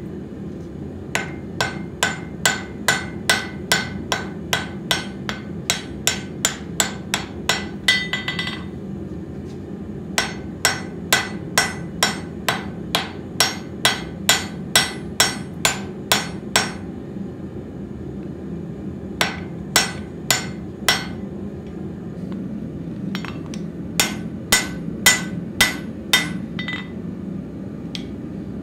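Hand hammer striking red-hot steel on an anvil, forging the blade and collar preform of a Finnish-style collared axe. The blows come in runs of about three a second, each with a short metallic ring, broken by brief pauses.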